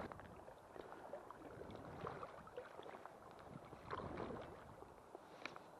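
Faint river water in the shallows: small irregular splashes and gurgles against stones.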